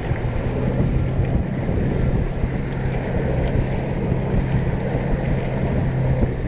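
Bass boat's outboard motor running at speed, a steady low drone under heavy wind noise on the microphone.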